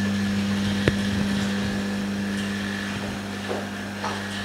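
Jiutu mini OCA laminating machine running its lamination and bubble-removal cycle with a steady low hum and a faint high whine, with a single sharp click about a second in.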